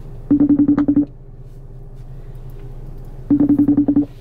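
iPhone FaceTime outgoing-call ringing tone, played through the phone's speaker while the call waits to be answered: two bursts of about eight rapid beeps on one low tone, about three seconds apart.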